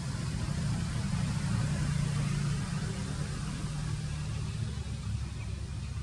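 A steady low rumble with a faint hiss over it, swelling slightly a couple of seconds in.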